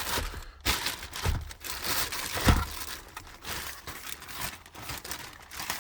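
Packaging being crumpled and handled, an irregular run of crinkling rustles as a replacement part is unwrapped.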